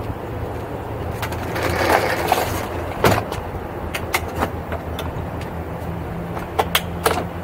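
Scattered knocks and clicks of hands handling a homemade wooden kayak cart with PVC pipe rollers, over a steady low hum.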